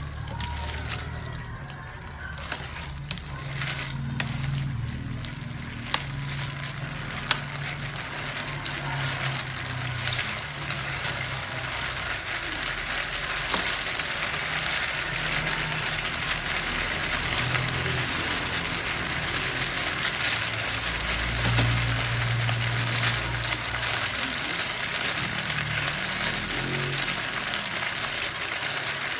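Beef strips frying and sizzling in their marinade in an enamel pan, the sizzle growing gradually louder, while metal tongs turning the meat click against the pan now and then.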